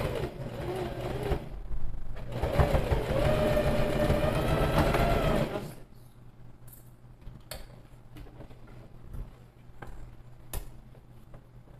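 Sewing machine stitching a seam, running steadily for about six seconds, then stopping. A few faint clicks of handling follow.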